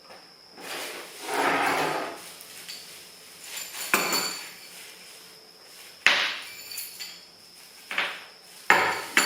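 Metal parts clanking and clinking as a wood chipper's axle tube and wheel hardware are handled and fitted: a scraping rustle about a second in, then several sharp knocks, the loudest about six and nine seconds in.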